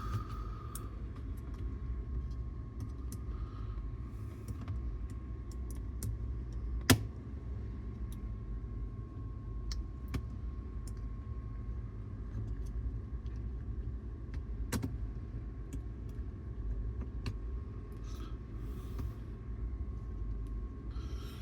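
Scattered small clicks and taps of cassette-deck tape transport parts being handled and fitted, with a sharp louder click about seven seconds in and another about fifteen seconds in, over a steady low hum and a faint steady high whine.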